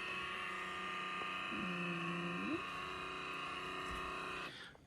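Keurig K-Compact coffee maker running after its brew button is pressed, its pump giving a steady electric buzz as it heats up the water, then cutting off suddenly near the end.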